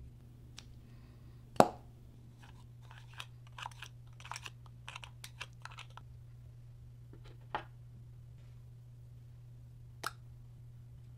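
Small plastic clicks and light crackles as a glitter-filled plastic syringe and a lipstick are handled over a bowl of clear slime: one sharp click about a second and a half in, a quick run of small clicks in the middle, and single clicks near the end.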